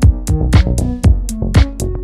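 Background music in an electronic style, with a steady drum-machine beat of about two heavy beats a second and held melodic notes.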